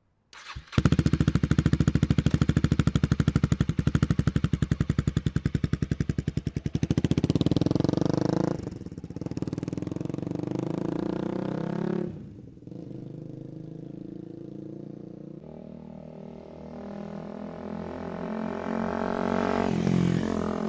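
Honda Rebel 300's single-cylinder engine running through a Coffman's Thunder slip-on exhaust: it catches under a second in and runs close by with an even, deep exhaust pulse, then pulls away, dropping off in steps. It swells again near the end.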